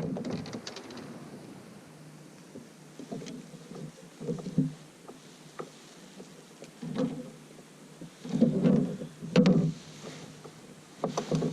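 Irregular knocks, clicks and rustling from handling gear on a kayak, with the heaviest bumps about two-thirds of the way through.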